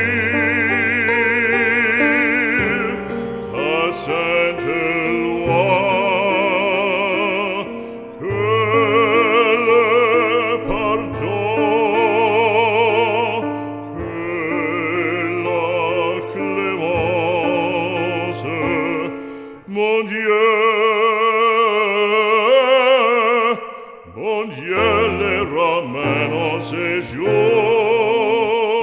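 Background music: a French sacred song sung in operatic style, one voice holding long notes with wide vibrato over a sustained accompaniment, breaking off briefly between phrases.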